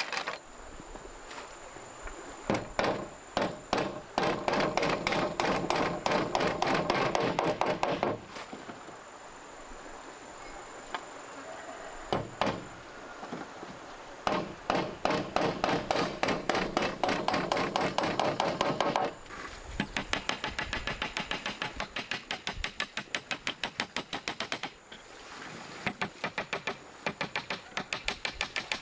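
Rapid repeated strikes on wood, several a second, in runs of a few seconds separated by short pauses, like hammering or chopping.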